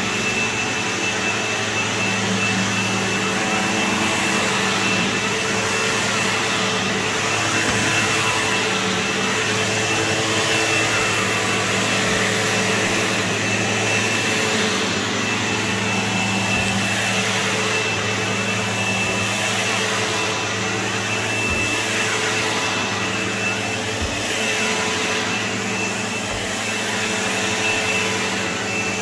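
Sebo X4 upright vacuum cleaner running steadily over carpet: an even rush of suction noise with a steady high whine and a low hum.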